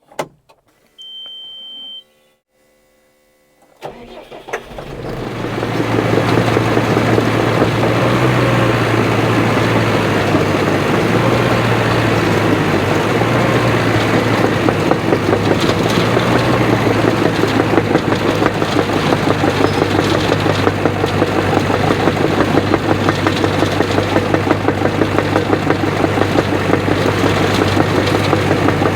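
A short high beep about a second in, then a Caterpillar D5 dozer's diesel engine starting about four seconds in, coming up over a couple of seconds and then running steadily.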